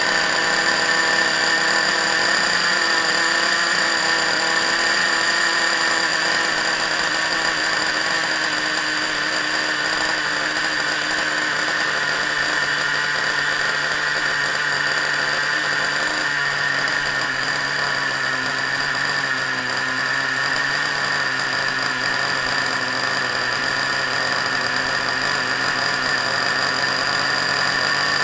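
Small two-stroke nitro engine of a Traxxas Revo RC truck, freshly started with a glow plug igniter, running steadily with a high buzzing whine. Its pitch settles slightly lower about halfway through.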